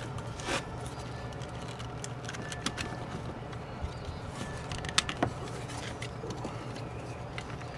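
Plastic clicks and light knocks from a 1998 Ford Expedition door switch panel being pried up out of the door trim and handled on its wiring, the sharpest two clicks close together about five seconds in, over a steady low hum.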